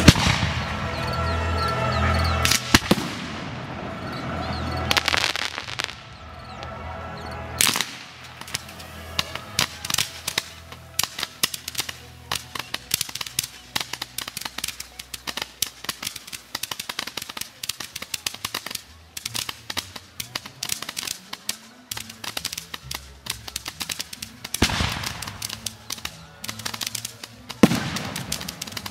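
Fireworks: one loud bang at the start, then from about eight seconds in a long run of rapid crackling pops and small bangs, many to the second, with a couple of heavier bursts near the end.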